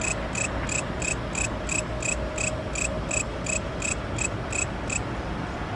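An insect chirping steadily, about three short, high chirps a second, stopping about five seconds in, over a steady low background noise.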